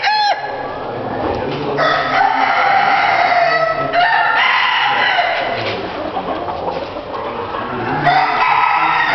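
Roosters crowing: one crow ends just as the sound begins, a long crow runs from about two to five seconds in and jumps up in pitch partway, and another starts near the end, over a steady din of other poultry.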